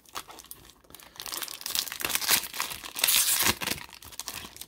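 A foil wrapper of a 2002 Donruss baseball card pack being torn open and crinkled by hand: a run of crackling tears that builds about a second in, is loudest in the middle and eases off near the end.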